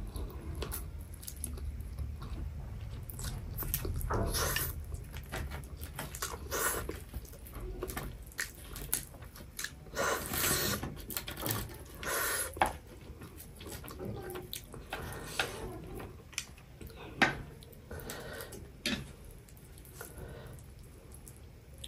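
Close-miked eating sounds: a person slurping and chewing instant noodles, with irregular wet smacks and clicks of the mouth and a few louder slurps around the middle.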